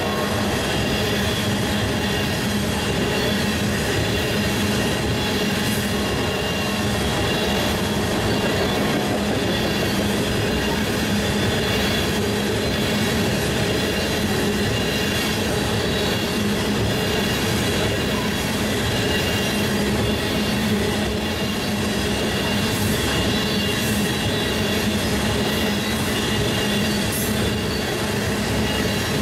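Freight train of steel tank cars rolling past at close range: a steady rumble of wheels on rail with a high, steady whine over it and a few faint clicks.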